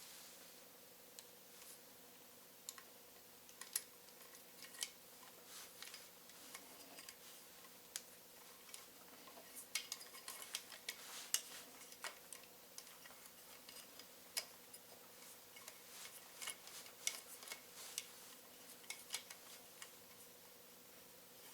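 Faint, irregular metallic clicks and light taps from small metal parts and hand tools being handled, busiest about halfway through, over a low steady hum.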